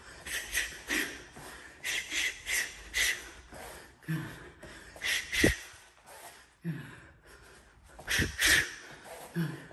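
Short, sharp exhales as a boxer throws punch combinations, coming in quick runs of two to four, with a dull thump about halfway through.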